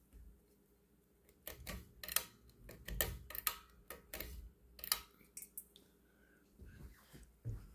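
A quick run of sharp, irregular clicks and taps from a hand working a ceiling fan's switch housing and pull chain, over a faint steady hum.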